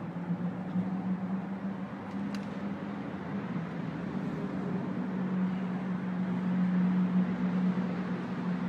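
Steady low mechanical hum over the noise of city surroundings.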